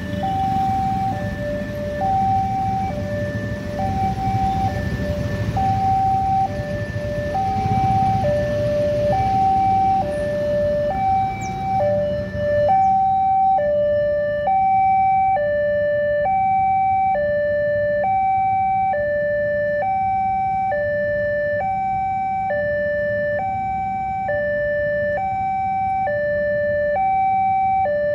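Railway level-crossing warning alarm sounding while the barrier is down: an electronic two-tone signal alternating between a higher and a lower tone about once a second, warning of an approaching train. It first sounds over the low rumble of waiting traffic; about halfway through the traffic noise drops away and the alarm is heard clearly.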